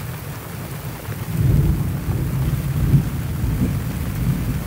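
Deep rumble of thunder from a lightning strike about eight seconds away, swelling about a second and a half in and rolling on, over steady heavy rain.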